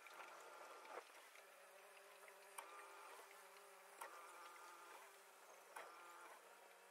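Faint, steady buzzing hum of a boat motor running slowly, with a soft knock about every second and a half.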